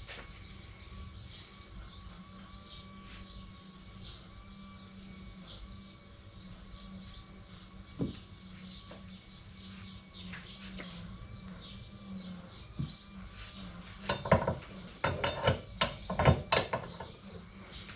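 Light clinks and knocks of metal tools and parts being handled while a Jeep TJ universal joint is fitted: one knock about eight seconds in, then a quick run of louder clinks near the end. Birds chirp faintly over a steady low hum.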